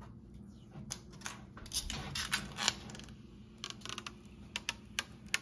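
Protective plastic film being peeled off a stainless steel range hood panel, giving a string of irregular crackles and sharp ticks as it comes away.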